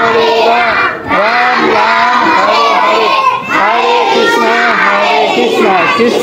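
A group of young children chanting a Hindu mantra in unison, in a sing-song rhythm, with short breath pauses about one second and three and a half seconds in.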